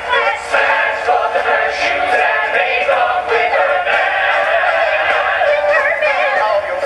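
Show tune from a stage musical: a male lead singing over a full backing track.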